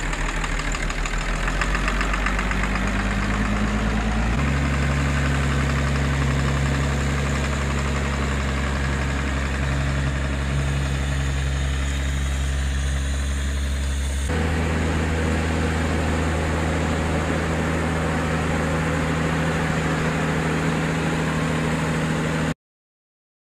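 New Holland T7060 tractor's six-cylinder diesel engine running steadily as the tractor drives across a field pulling an implement. The engine drone changes abruptly about four seconds in and again about fourteen seconds in, and the sound cuts off suddenly shortly before the end.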